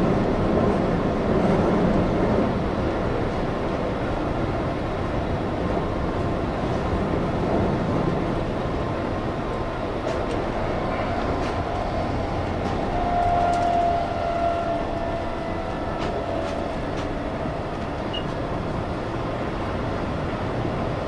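Keihan Railway electric train running at speed, heard from inside the leading car: a steady rumble of wheels on rail with scattered light clicks. A short faint whine comes in about two thirds of the way through.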